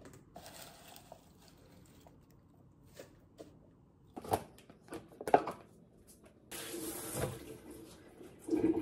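Hands moving washed greens from a plastic salad spinner into a plastic container: scattered light knocks and clicks of plastic, the loudest about five seconds in, then about a second of hissing noise near the end.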